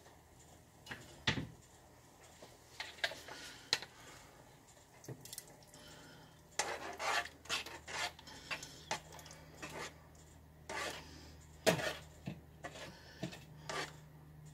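Metal spoon clinking and scraping against a pot of soup as it is stirred, in scattered knocks with a longer run of scraping about six to eight seconds in.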